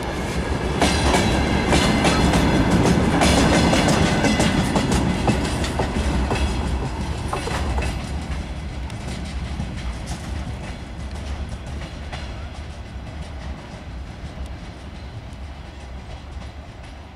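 Freight train of open wagons rolling past, wheels clacking sharply over rail joints and points over a steady rumble. The clicks are loudest in the first few seconds, then the rumble slowly fades as the end of the train moves away.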